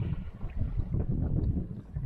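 Uneven, gusty low rumble of wind buffeting the microphone aboard a fishing boat at sea.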